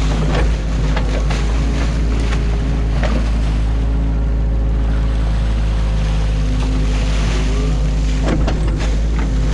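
Excavator's diesel engine running steadily under a rushing noise, with a few short knocks of the machine at work.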